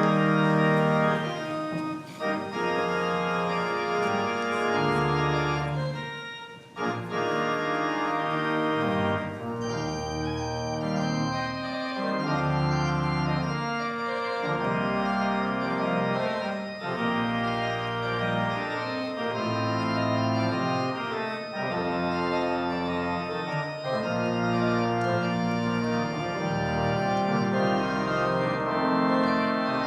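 Organ playing recessional music for a procession leaving: full sustained chords over a moving bass line, starting suddenly.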